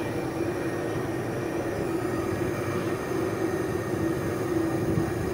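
Steady mechanical drone of a running machine: one constant hum-like tone over a noisy background, holding even throughout.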